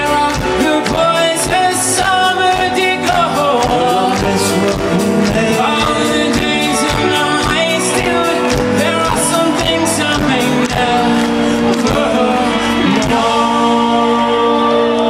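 Live pop-rock band playing, heard from within the audience on a small handheld recorder: lead vocal over a steady drum beat. About two seconds before the end the drums drop out, leaving held chords.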